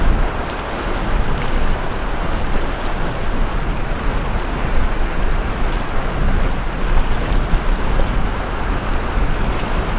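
Sea waves washing continuously onto the beach, with wind buffeting the microphone as a low rumble.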